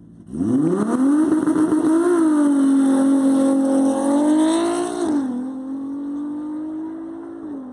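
Six-cylinder turbocharged Audi A3 launching hard from the drag strip start line on low wastegate boost for a first test run. The engine note climbs steeply and then holds high, with a pitch drop at a gear shift about five seconds in. It then fades as the car pulls away down the track.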